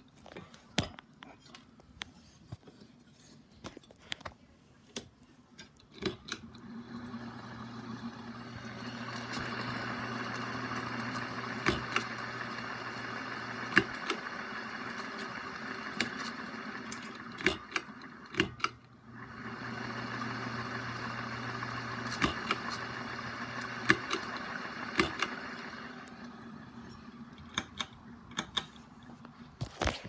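Hunter Balboa ceiling fan motor running with a steady hum, which starts a few seconds in, breaks off briefly past the middle, starts again and dies away near the end. Sharp clicks and rattles of the pull-chain switch and chain come throughout.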